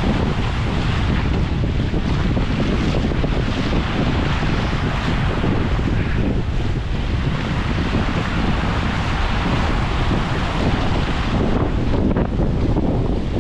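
Wind buffeting a GoPro's microphone in a steady rumble, over the wash of waves breaking on the beach.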